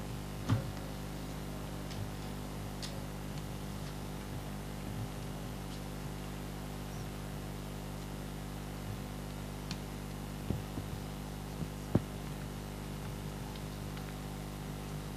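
Quiet room tone carrying a steady mains hum, broken by a few scattered short knocks, the sharpest about three-quarters of the way through.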